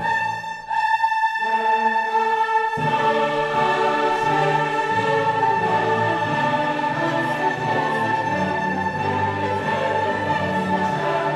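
Classical orchestral music with a choir singing long held notes; a fuller low part comes in about three seconds in.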